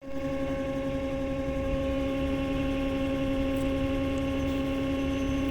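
Daikin air conditioner running with a steady, pitched hum that holds unchanged throughout: the abnormal noise the unit is being shown for.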